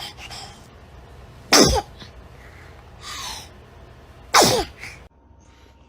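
A baby sneezing twice, about a second and a half in and again near the end, each sneeze short and sharp and dropping in pitch.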